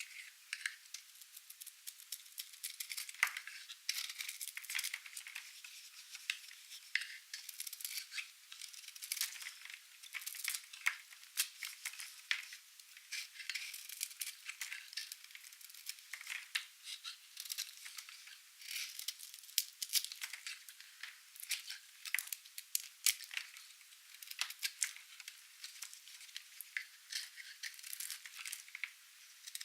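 A knife cutting through dry, painted soap: a steady run of crisp, irregular crackling clicks and scrapes, all high-pitched with no low end.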